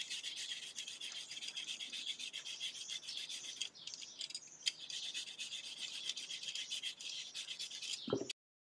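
Vegetable peeler scraping strips of skin off a raw sweet potato in quick repeated strokes, with a short pause about four seconds in. The sound cuts off suddenly near the end.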